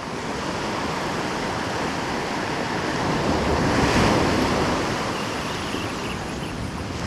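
Ocean surf: small waves breaking and washing up the sand, swelling loudest about four seconds in and easing off.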